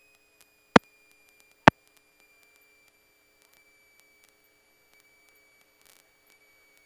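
A steady high-pitched tone in the cockpit audio, sliding slowly a little lower in pitch, with two sharp clicks about a second in.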